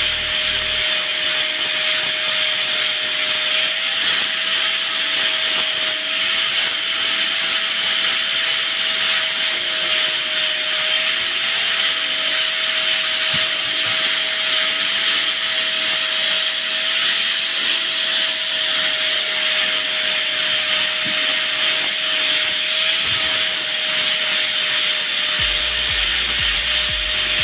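Corded electric angle grinder running continuously with a steady whine, its disc grinding away the fibrous husk of a coconut.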